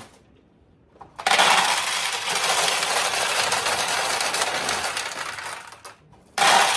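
Steel pachinko balls clattering through a 1972 Nishijin Model A pachinko machine as they run from the upper hopper down the chutes into the tray. A dense run of clicking starts about a second in and lasts about four and a half seconds, then stops briefly. A second run starts near the end as more balls go into the hopper.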